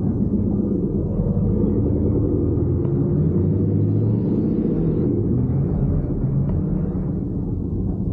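Truck engine and drivetrain rumbling while driving over a dirt track, heard from inside the cab. The revs climb a little about halfway through, then ease off.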